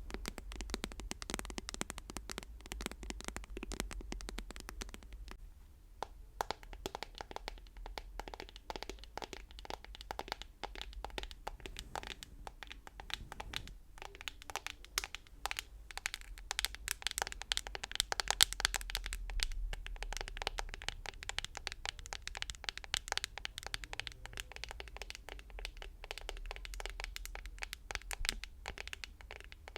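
Rapid, continuous ASMR tapping: a dense run of quick, light taps with a brief lull about six seconds in, busiest and loudest a little past the middle.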